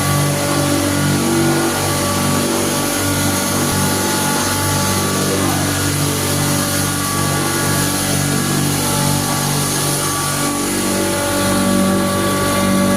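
Electric grinder motor running steadily while grinding coriander. It is a continuous hum whose pitch shifts slightly now and then.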